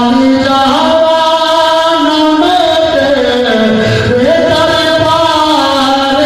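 A man's unaccompanied voice singing a devotional chant into a microphone, in long held notes that glide up and down in melodic turns.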